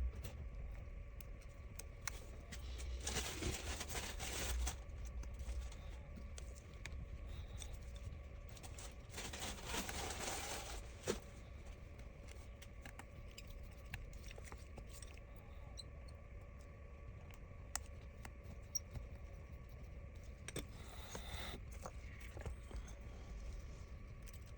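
Faint handling sounds of small-scale phone repair work: two longer stretches of scraping and rustling, about three seconds in and again about nine seconds in, and a few sharp little clicks, over a steady low hum.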